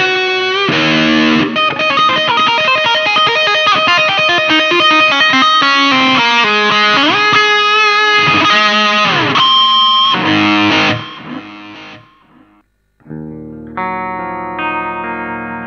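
Electric guitar played through a Mooer GE 150 Pro multi-effects processor: a fast lead line of quick single notes with string bends, dying away about twelve seconds in. After a second's silence, a new tone starts with held ringing notes.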